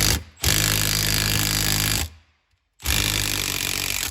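A power tool run in bursts on a tight turbocharger housing bolt. There is a brief burst, then two runs of a second or more each, with a short pause between them.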